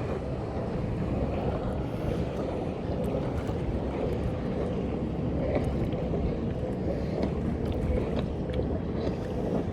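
Steady wind noise on the microphone over water washing against a kayak as it rides large swells.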